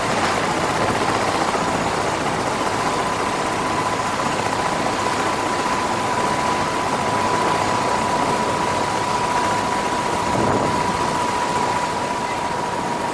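Helicopter running on the ground at idle: a steady engine roar with a constant high turbine whine.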